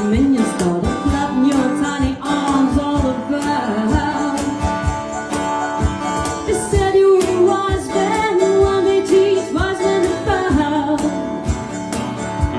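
A band playing an instrumental passage: guitar with a bending, gliding lead melody over a steady beat.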